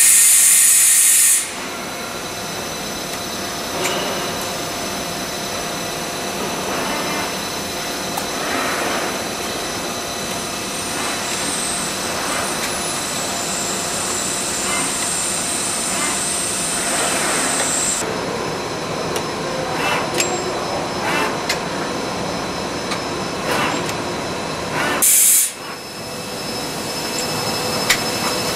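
Okamoto IGM-15CNC internal grinder running: a steady machine hum with several constant whining tones and a high hiss from about 11 to 18 seconds in. Two short, loud bursts of hiss come at the start and about 25 seconds in.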